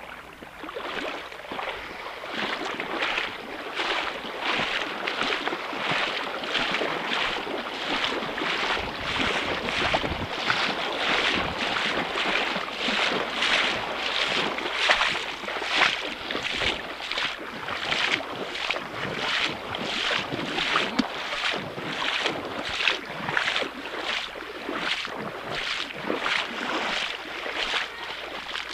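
Footsteps splashing through shallow water, with a steady walking rhythm of a little over one step a second.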